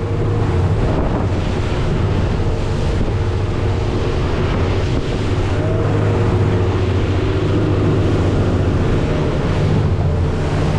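Motorboat engine running steadily at speed, with water rushing past the hull and wind buffeting the microphone.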